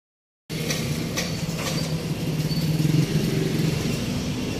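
An engine running steadily at idle amid street traffic noise, with three light clicks in the first second and a half.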